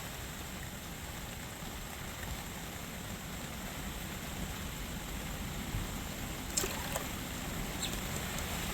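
Steady rain falling, a soft even hiss, with a faint tick or two of drops or small knocks about six and a half and eight seconds in.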